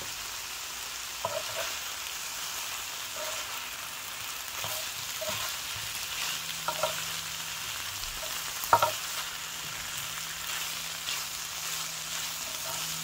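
Ground chicken and eggplant chunks sizzling in an electric skillet, with a slotted spatula scraping and knocking against the pan as the food is stirred; the loudest knock comes about two-thirds of the way through.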